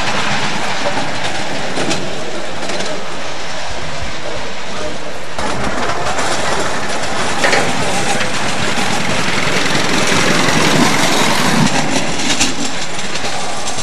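Ride-on miniature railway train running along the track, its wheels clattering over the rails. The sound changes abruptly about five seconds in.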